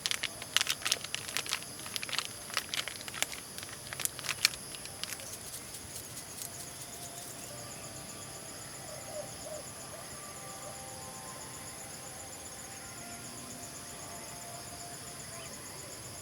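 Steady high-pitched chorus of insects with a fast pulsing trill. A rapid run of sharp clicks and taps, the loudest sound, comes over the first five seconds and then stops.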